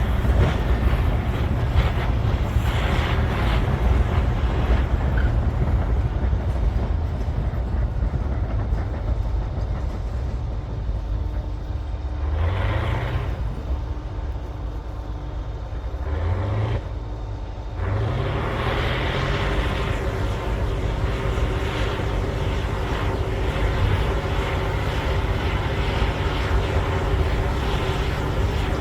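Caterpillar D9L bulldozer's diesel engine running hard under load while pushing overburden. A little past the middle it eases off, then revs up again in three short rising sweeps before settling back to a steady heavy pull.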